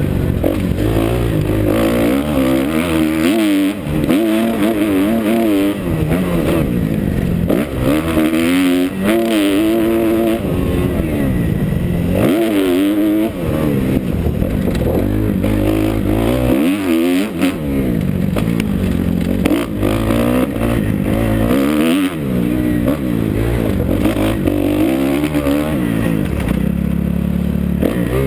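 Kawasaki KX250F four-stroke single-cylinder motocross engine, heard from the rider's helmet, revving hard and easing off again and again, its pitch climbing and falling with throttle and gear changes.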